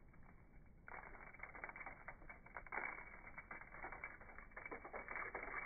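Seasoning shaker being shaken over raw rabbit, the dry rub granules rattling inside in a fast, dense run of small clicks that starts about a second in.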